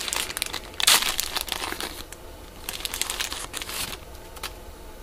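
A trading card pack's wrapper crinkling and tearing as it is pulled open by hand. The noise comes in two spells, about a second in and again around three seconds in, with a short click near the end.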